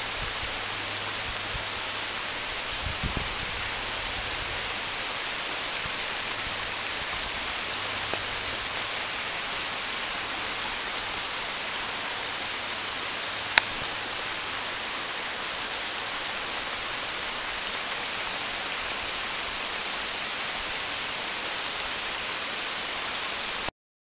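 Steady rain and storm runoff water running over rocks in a channel, an even hiss, with one sharp click about halfway through; it cuts off abruptly near the end.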